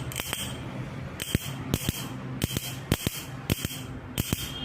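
Ignition coil snapping out sparks on the bench, sharp clicks two or three times a second and often in quick pairs, as the repaired Alto ECU fires it. The ECU is now triggering the coil again. A steady low hum runs underneath.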